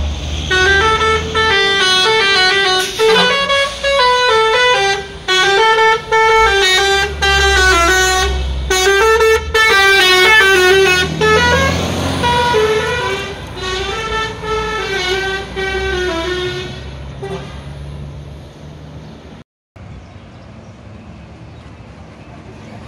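An intercity bus's telolet horn playing a long run of multi-tone blasts, its pitches stepping up and down like a tune with short breaks, for about sixteen seconds over the bus's low rumble. It stops well before the end, leaving only the bus running and road noise.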